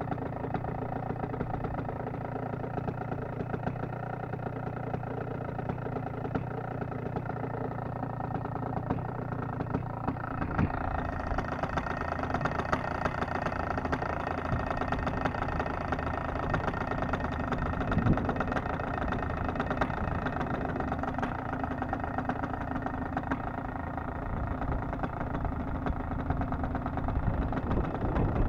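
Paramotor engine idling steadily, its tone shifting slightly about ten seconds in.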